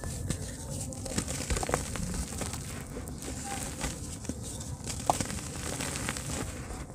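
Soft lumps of dirt crumbling and breaking apart in the hands, with powdery grit trickling down onto a wet heap in a basin. The sound is a dense run of small, irregular crackles and gritty crumbles.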